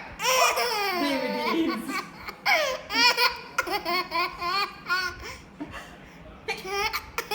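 Baby with hiccups laughing and giggling: a long falling cry-like wail near the start, then runs of quick, short laughs.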